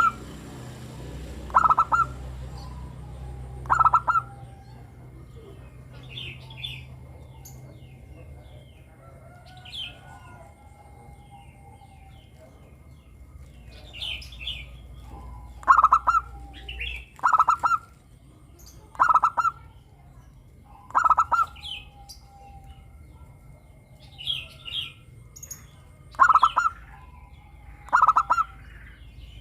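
Zebra doves (perkutut) calling, each a short trilled coo repeated about every two seconds. Three calls come near the start, then a pause of about twelve seconds, then six more. Small birds chirp higher and fainter in between.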